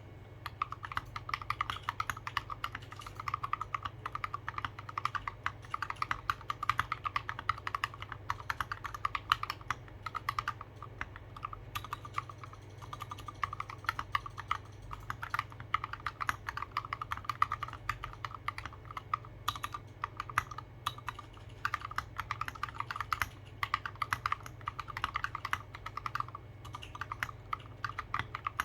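Typing on a Discipline mechanical keyboard with Gateron Merlot tactile switches lubed with Krytox 205g0, SA-profile keycaps and no foam in the case: fast, continuous keystroke clacks with a few brief pauses.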